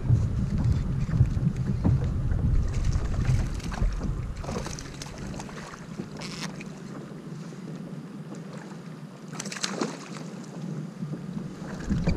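Wind rumbling on the microphone for the first five seconds or so, then easing off, over water noise around a kayak, with a few short splashes at the surface.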